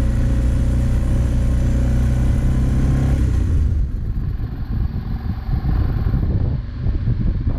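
BMW GS 650 motorcycle engine running steadily under way. About three and a half seconds in, the engine tone drops out and a rough, gusty rumble of wind on the microphone and riding noise takes over.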